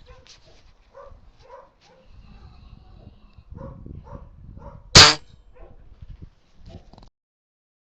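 Pigs grunting in short repeated calls, with one loud sharp crack about five seconds in. The sound cuts off suddenly shortly after.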